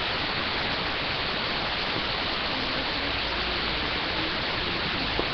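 Steady, even hiss, with a faint voice now and then and a single click near the end.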